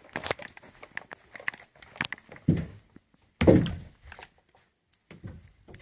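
Scattered clicks and knocks with two heavier thuds, the louder one about three and a half seconds in.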